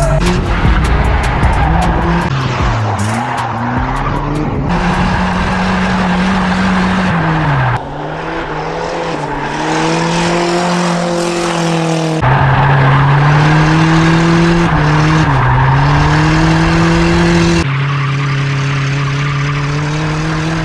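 Turbocharged Nissan D21 Hardbody mini truck drifting: the engine revs up and down and is held high, with tyres squealing and skidding. The sound changes abruptly several times.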